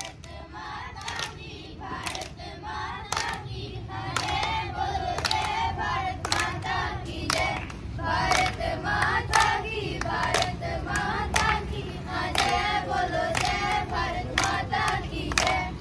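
A group of schoolchildren singing together in unison, with steady hand claps that come about twice a second for most of the song.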